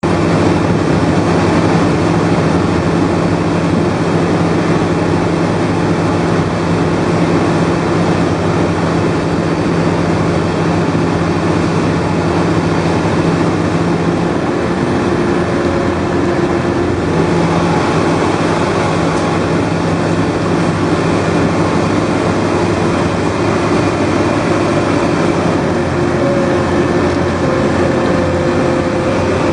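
Engine and machinery of a large drilling machine running steadily: a constant heavy hum over a dense rumble, with the hum dropping away briefly about halfway through.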